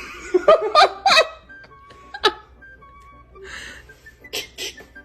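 Background music, with a quick run of short, pitched vocal sounds that bend in pitch about half a second to a second and a half in, and one more sharp one a little after two seconds in.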